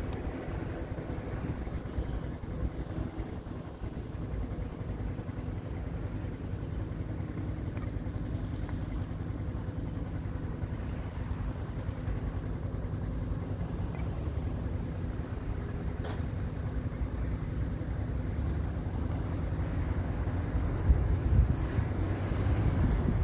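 Strong wind buffeting the camera's microphone: a steady low rumble that grows louder near the end.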